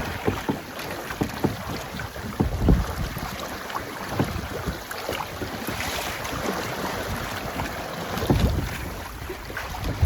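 Wind buffeting the microphone aboard a sailboat under way, over water rushing and splashing against the hull. Stronger gusts come about two and a half seconds in and near the end.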